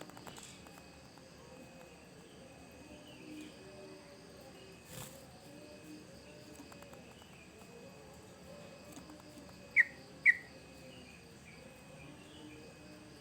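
Yellow-vented bulbul (trucukan) calling: scattered faint chirps, then two loud, short notes in quick succession about ten seconds in, over a steady insect background.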